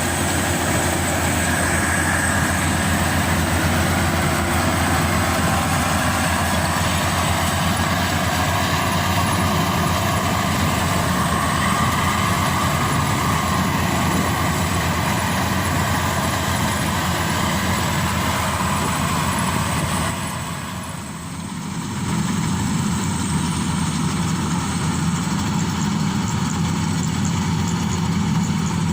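Maxxi Bimo Evo Xtreme combine harvester running steadily while harvesting rice: engine hum with the clatter of its threshing machinery. The sound dips briefly about twenty seconds in, then carries on with a heavier low hum.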